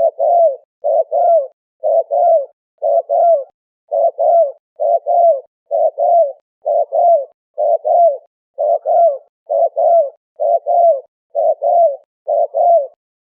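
Spotted dove (terkukur) cooing: a steady, evenly spaced run of short two-part coos, roughly one and a half a second, stopping briefly near the end.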